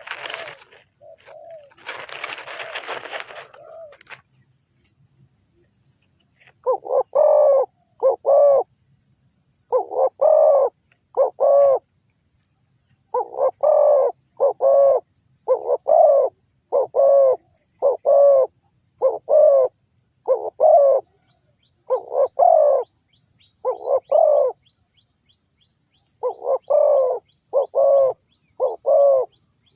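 Spotted dove cooing over and over in short runs of two to four coos with pauses between, starting about six seconds in. A noisy rustle comes before it in the first few seconds.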